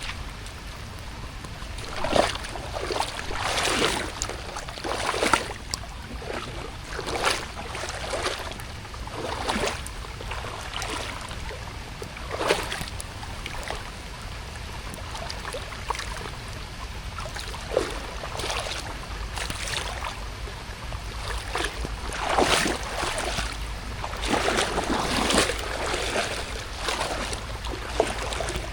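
Footsteps splashing and sloshing through shallow water, one wet stroke every second or two with uneven spacing, over a steady hiss.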